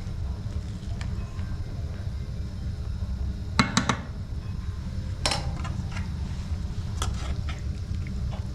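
Dishes and cutlery clinking: three quick clinks about three and a half seconds in, a clatter just past five seconds, and a few lighter clinks around seven seconds, over a steady low rumble.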